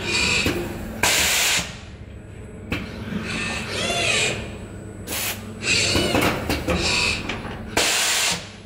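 Pneumatic pick-and-place machine working: several short hisses of compressed air from its valves and grippers, the loudest about a second in, over a steady machine hum. There is a brief rising and falling whine midway.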